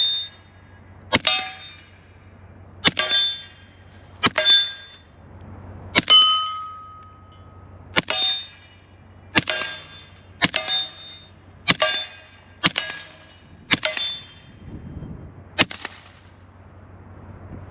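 About a dozen suppressed .45 pistol shots, fired slowly about one every one to two seconds. Each shot is followed by the short metallic ring of a hit on a steel target.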